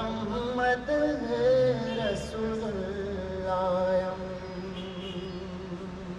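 A man's voice chanting a Pashto naat melismatically, drawing out long wavering held notes without clear words.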